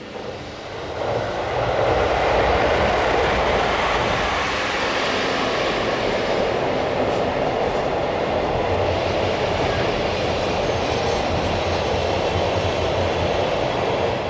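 Freight train passing close by, a loud steady rumble and rush of wheels on rail that builds over the first two seconds and then holds.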